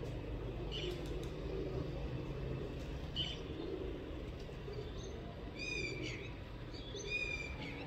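Birds calling: two short high chirps a few seconds apart, then two longer high calls near the end, over a steady low background rumble.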